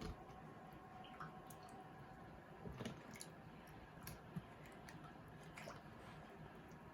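Faint, scattered drips and soft wet clicks: set tokoroten jelly being handled in a bowl of water.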